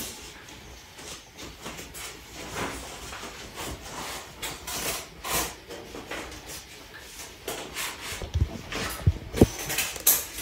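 Scattered rustling and light clicks, with a few dull low knocks near the end.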